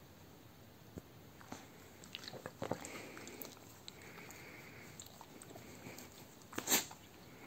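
A dog licking its lips and smacking its mouth: scattered soft wet clicks, with one louder click near the end.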